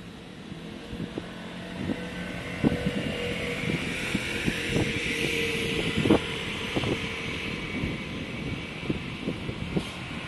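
A motor vehicle passing, its engine hum and hiss swelling to a peak midway and easing off, with scattered clicks and knocks.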